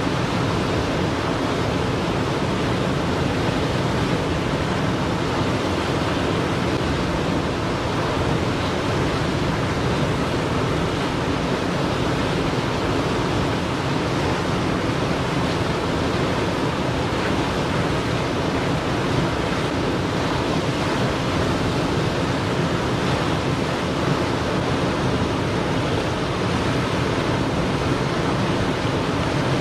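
Loud, steady rush of churning whitewater from a river's standing play wave running at high flow.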